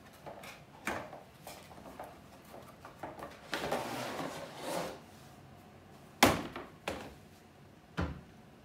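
A wooden mini table easel slides out of its cardboard box with a scraping rustle. A few sharp wooden knocks follow as it is stood on a glass tabletop, the loudest about six seconds in.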